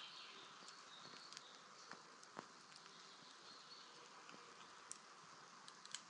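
Faint crackling of a small wood fire burned down to glowing embers: a soft hiss with scattered sharp pops and crackles every second or so.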